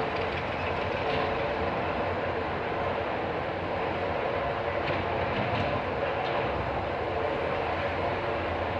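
Steady mechanical running noise with a low hum and a few faint clicks.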